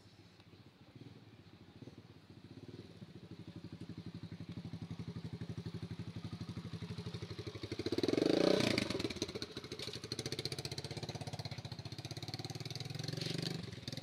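A small motorbike engine running, growing louder over several seconds and loudest about eight seconds in as it comes close, then dropping back to a steadier level.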